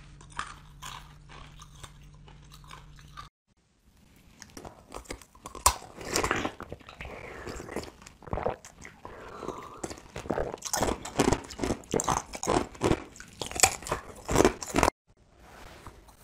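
Close-up crunching of frozen flavoured ice being bitten and chewed: a run of sharp cracks and crisp crunches in irregular clusters for about ten seconds. Before it, the first few seconds hold only a low hum with faint handling clicks, broken by a short silent gap.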